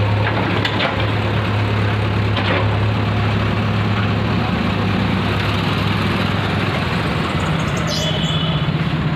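An engine idling steadily with a low hum, likely a diesel tractor engine running at the market, with a few faint clicks.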